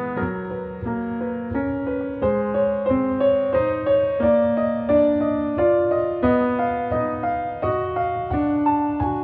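Background music: a gentle piano melody of single notes over held lower notes, with a new note roughly every half second.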